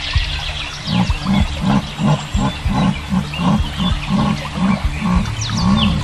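An animal's rhythmic grunting call: about fifteen low grunts at roughly three a second, starting about a second in and stopping shortly before the end. Birds chirp throughout.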